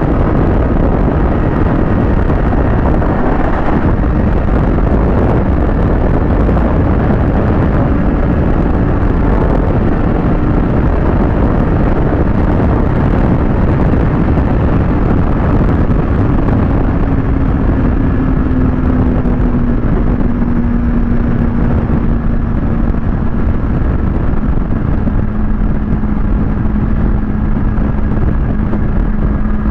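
Kawasaki ZX-6R's inline-four engine running while riding, buried under heavy wind rush on the microphone; a little past halfway the engine note drops slightly in pitch and then holds steady.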